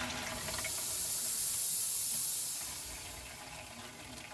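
Water hissing as it rushes through a newly installed Frizzlife pre-filter and its lines while the system pressurizes for the first time. The high hiss swells about two seconds in, then fades.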